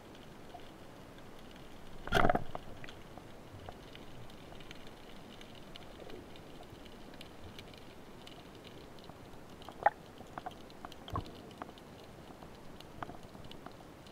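Underwater ambience picked up by a diver's camera: a faint steady hiss with scattered small crackling clicks. There is one loud short knock about two seconds in, and a few sharper clicks later on.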